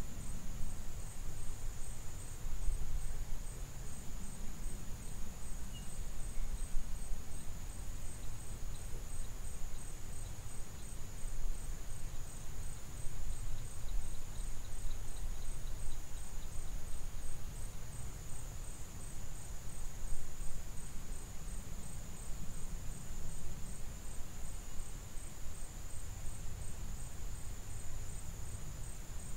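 Steady, high-pitched insect trill, finely pulsed and unbroken, over an uneven low rumble.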